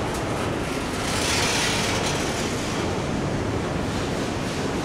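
Double-stack intermodal freight train's well cars rolling past, their wheels on the rails making a steady noise.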